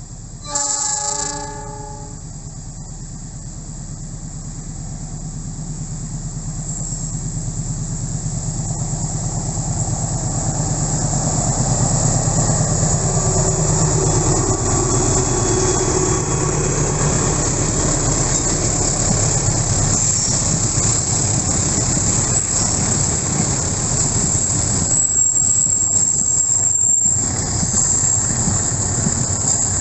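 A CC206 diesel-electric locomotive sounds its horn once, briefly, while still far off, then its engine drone grows louder as it approaches, dropping in pitch as it passes halfway through. A train of loaded fuel tank wagons follows, rolling past with wheel noise and a few clicks over the rail joints.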